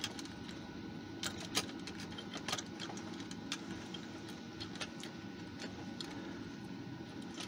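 Scattered small clicks and taps of a screwdriver and fingers working on a Stylophone's circuit board and plastic case to take out its faulty speaker, over a steady low hum.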